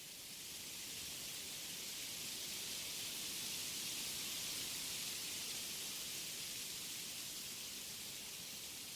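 Wind blowing through forest trees, a steady high rustling hiss. It swells over the first few seconds, is strongest around the middle, then eases a little.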